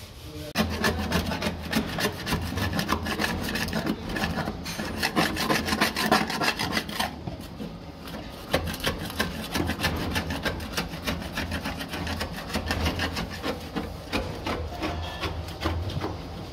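Hand scraper blade scraping old matted insulation off the steel floor pan of a Toyota Land Cruiser 60 series, in quick repeated strokes. The scraping starts about half a second in and breaks off briefly about seven seconds in.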